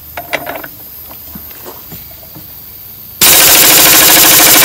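A few light metal clicks, then about three seconds in a 3/4-inch pneumatic impact wrench starts hammering loudly and rapidly, driving against a stuck hex shaft with the air compressor at full pressure.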